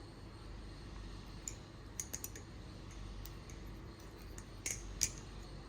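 A few light, sharp clicks from a balisong (butterfly knife) being handled. There is a small cluster about two seconds in and two louder clicks near the end.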